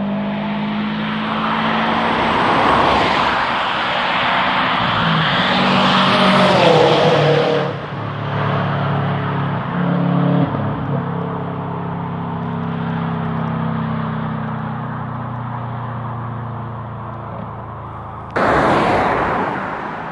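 Subaru car passing at speed: its engine grows louder to a peak about six to seven seconds in, then drops in pitch as it goes past and away, leaving a steadier engine drone. A sudden loud rush of noise starts near the end.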